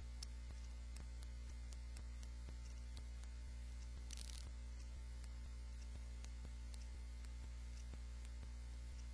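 Faint steady electrical mains hum, with small ticks at an even pace and a brief hiss about four seconds in.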